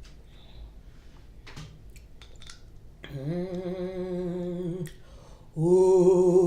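A person humming a long, steady "mmm" while eating, then a second, louder hum starting about two seconds later, after a few faint clicks early on.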